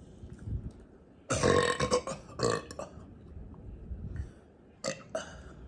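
A person burping: a long, loud burp about a second in, a shorter one right after it, then two short burps near the end.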